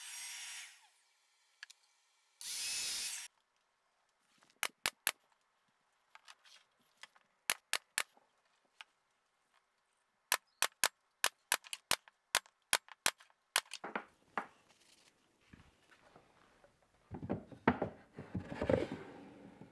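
Miter saw cutting plywood, running down at the start with one more short cut a few seconds in; then a long series of sharp pops, singly and in quick groups, from a pneumatic brad nailer fastening butt-jointed drawer boxes. Near the end, a wooden drawer rubs as it slides into its cubby.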